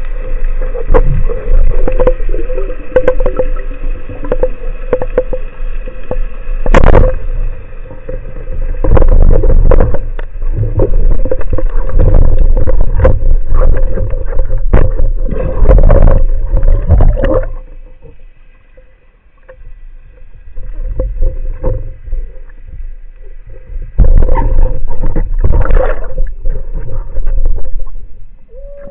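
Underwater noise from a camera carried by a swimming diver: loud rushing and knocking of water against the camera over a steady hum. There is one sharp knock about seven seconds in, and a quieter stretch of several seconds about two thirds of the way through.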